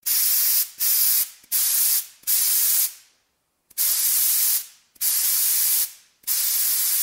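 Aerosol spray-paint can hissing in short bursts, about seven in a row, each lasting under a second and trailing off, with a brief pause near the middle.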